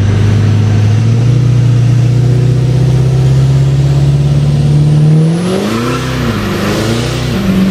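Ford 6.7 L Powerstroke V8 turbo-diesel, heard from inside the cab, revving up steadily under hard acceleration. About five seconds in, the revs start flaring up and down unevenly as the tyres break loose and spin.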